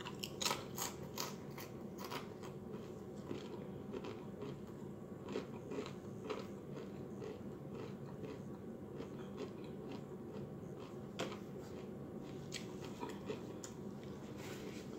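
Crunching and chewing Doritos Flaming Hot Nacho tortilla chips close to the microphone: a quick run of sharp crunches in the first couple of seconds, then scattered, softer crunches.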